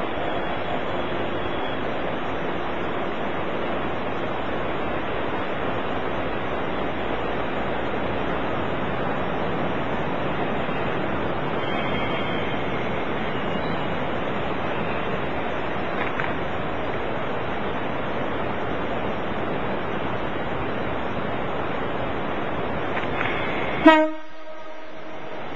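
A steady rushing noise, then a diesel railcar's horn sounds once, short and loud, near the end.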